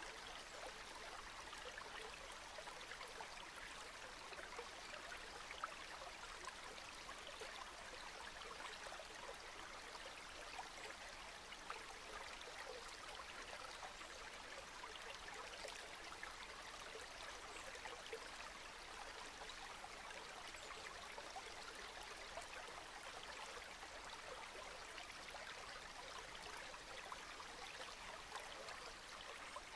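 Steady rain falling: a soft, even hiss of many small drops pattering.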